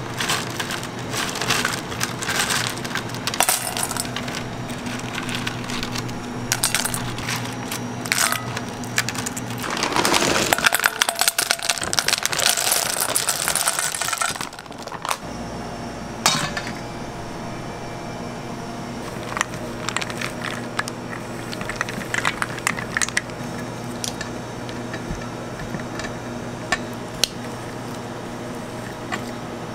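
Dried fruit slices clicking lightly as they are handled on a plastic mesh dehydrator tray. About ten seconds in, white chocolate discs are poured into a stainless steel pot, a dense rattling of about four seconds that is the loudest sound. After that a spatula stirs the melted chocolate over a steady low hum.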